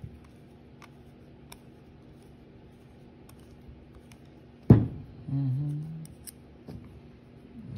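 Faint metallic clicks and scrapes of a flathead screwdriver turning the cylinder screw of a Röhm RG23 .22 revolver. A sharp thump comes about two-thirds of the way through, followed by a brief low hum.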